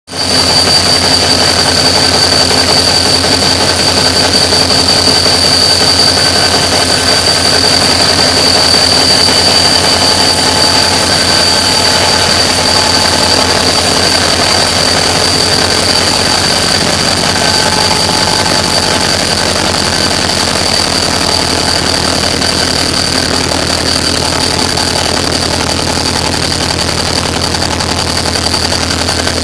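Renfe class 333 diesel-electric locomotive running steadily with a deep engine hum and a constant high-pitched whine above it.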